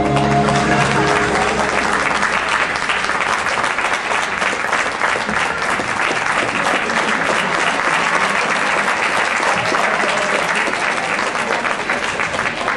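Audience applauding, a dense steady clapping that thins a little near the end, after the last chord of the skating routine's music fades out in the first second.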